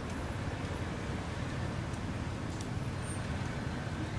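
Steady outdoor background noise: a low rumble with an even hiss over it and a couple of faint ticks.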